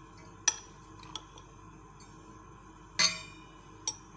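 A utensil clinking against a bowl as desiccated coconut and milk are mixed together: four sharp clinks, the loudest about three seconds in with a short ring.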